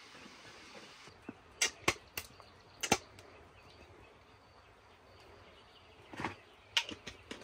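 A few irregular sharp knocks and clicks of objects being handled: several close together in the first three seconds, and a few more near the end.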